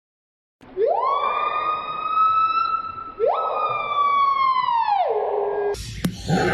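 Two long siren-like wails. Each rises quickly, holds high and then falls away, and the second begins about halfway through. Near the end the sound cuts suddenly to a different, noisier sound with a sharp click.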